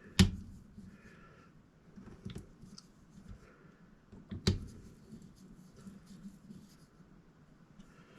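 Scope ring screws being tightened with a torque driver: light scattered ticking and two sharp clicks about four seconds apart.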